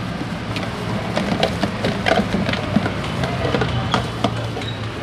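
Plastic food boxes knocking and clicking against each other and plastic bags crinkling as a gloved hand rummages through a cooler box, in quick irregular clicks over a steady low hum.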